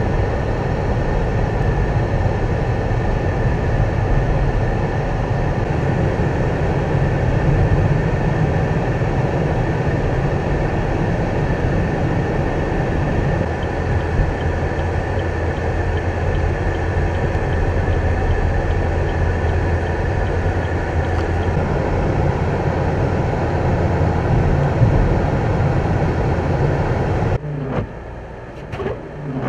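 Steady vehicle and road noise: a constant low rumble with a faint steady whine above it. Near the end it cuts off suddenly to a quieter background with a few short knocks.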